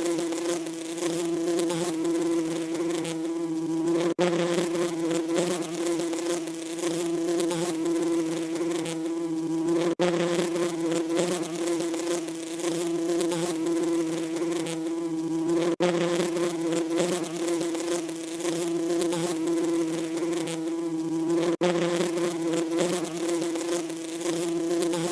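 Bee buzzing: a steady, fairly loud drone on one low pitch with its overtones. There is a brief dip about every six seconds, where a short recording repeats.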